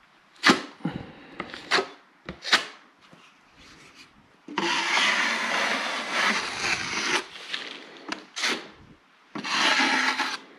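Steel drywall taping knife scraping wet joint compound across a drywall corner as a thin finishing coat goes on: a few short scrapes, then a long stroke lasting a couple of seconds, and another long stroke near the end.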